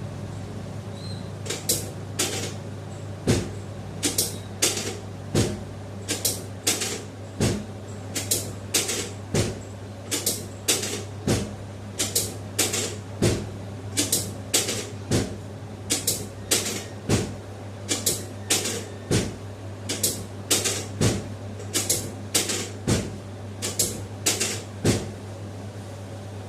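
Chiropractic drop table's drop section clacking down again and again as the spine is adjusted: sharp clacks, about one or two a second, starting a second or two in and stopping near the end. A steady low hum runs underneath.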